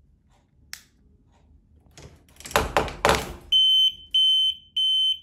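A brief rustling noise, then a high-pitched electronic buzzer beeping three times, each beep about half a second long: a simple homemade door alarm going off.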